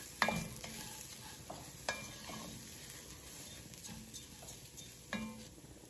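A wooden spoon stirring and scraping rice, onion and carrots in an enamelled cast-iron Dutch oven, with a faint sizzle as the rice toasts in hot oil. A few sharp knocks of the spoon against the pot stand out, near the start, about two seconds in and about five seconds in.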